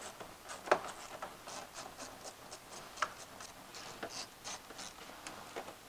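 Hand ratchet clicking in short strokes while tightening quarter-20 bolts on a firewall cover: a quick, uneven run of light metallic ticks, with a sharper tap about three-quarters of a second in and another about three seconds in.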